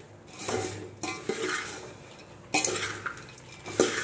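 A metal spoon stirring popped sorghum (jowar dhani) and peanuts in a large metal pot: the spoon scrapes and clinks against the pot, and the dry puffed grains rustle. There are several separate stirring strokes, each starting sharply and trailing off.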